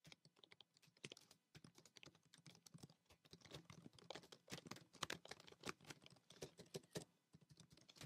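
Faint, irregular key clicks of a ProtoArc XK01 tri-fold Bluetooth keyboard being typed on. The clicks are sparse at first and come thick and fast from about three seconds in, staying soft throughout: a quiet-typing keyboard.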